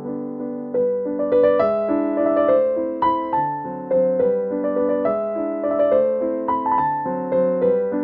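Background piano music: a gentle melody of struck notes, each fading after it is played.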